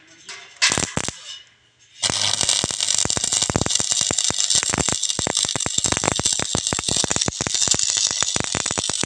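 Stick-welding arc from an E6013 electrode on 3 mm steel: two short crackles about half a second to a second in as the rod is struck, then from about two seconds a steady, dense crackling and sputtering for about seven seconds that stops abruptly near the end when the arc is broken.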